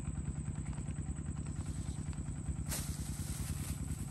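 Small motorcycle engine idling with a steady, rapid low putter. A brief rush of hiss comes in near the end.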